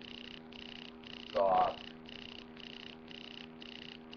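An unexplained noise that pulses evenly about twice a second over a steady electrical hum, a fault in the recording whose cause the uploader doesn't know. A brief vocal sound from the man cuts in about a second and a half in.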